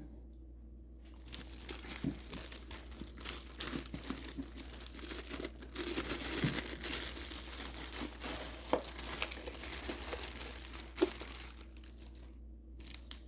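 Packaging being unwrapped by hand: continuous crinkling and rustling that starts about a second in and dies down near the end, with a few sharper clicks.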